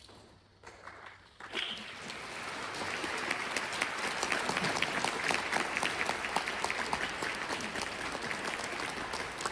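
Audience applauding: a few scattered claps in the first second or so, then the applause breaks out and swells to steady clapping.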